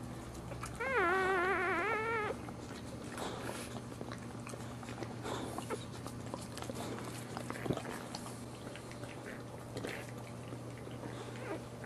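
Newborn boxer puppy crying: one high, wavering squeal about a second and a half long, then a few faint squeaks.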